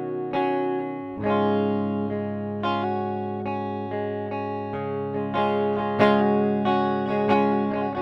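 Washburn Dime 333 electric guitar played on its clean tone with both pickups on together. It plays a slow run of strummed chords, each left to ring, with a new chord about every second.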